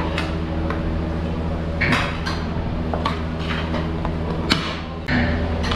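Metal ladle scraping and clinking against a large steel pot of rice as pulao is scooped out, several separate scrapes about a second apart, over a steady low hum.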